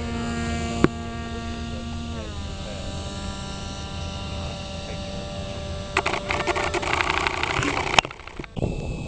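Model airplane's electric motor whining steadily; its pitch drops about two seconds in, as if throttled back. A sharp click comes about a second in and another near the end, with a burst of crackling noise for about two seconds before it.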